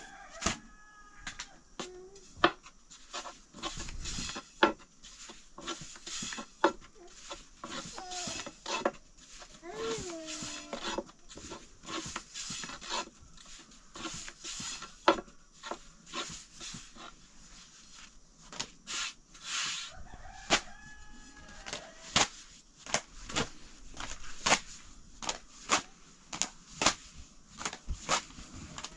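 Domestic fowl clucking and calling now and then, over frequent sharp knocks and taps.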